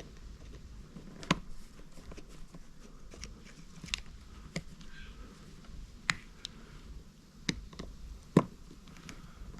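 A screwdriver prising at the housing of a car wiper switch, giving scattered sharp clicks and small scrapes at irregular intervals, the loudest click near the end.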